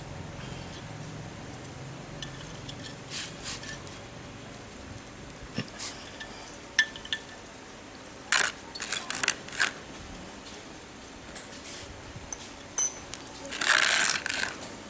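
A metal open-end wrench clicking and clinking on the crankcase drain bolt of an air compressor pump as the bolt is worked loose: a few scattered sharp metallic clicks, with louder handling noise near the end.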